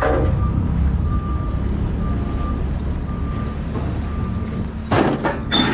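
Diesel pickup truck's engine idling, a steady low rumble, while a backup alarm beeps about once a second in the background. A short burst of clatter near the end.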